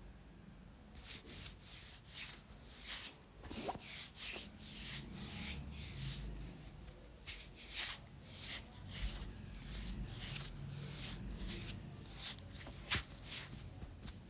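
Hands rubbing and kneading the neck and shoulders during a head and shoulder massage: skin and cotton clothing brushed in swishing strokes, roughly one or two a second, with one sharp click near the end.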